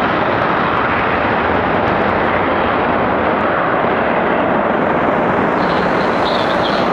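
F-15E Strike Eagle's twin jet engines in full afterburner during the takeoff roll: a loud, steady, dense rush of noise as the jet accelerates down the runway and lifts off.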